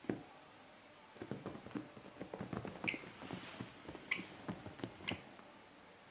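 A kestrel's feet scrabbling and pattering on a cloth bedspread as it hops about, with a knock at the start and three sharper clicks among the scuffs.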